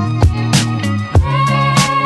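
Background music with a steady beat: drum hits over held bass notes, with a melody line coming in about a second in.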